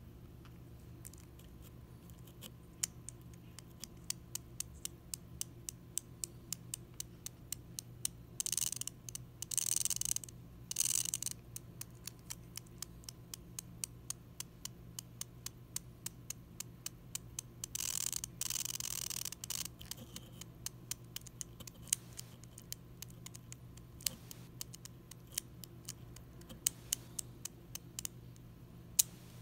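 Micro RC car being tested in the hand: a long run of sharp clicks, a few a second, with two short bursts of its tiny drive motor whirring, about eight and eighteen seconds in.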